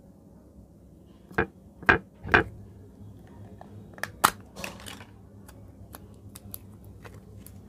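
Sharp plastic clicks and knocks from handling a plastic slime tub and its snap-on lid: three loud ones in the first few seconds, then a run of smaller clicks and sticky ticks as the tub is opened and slime is pulled out.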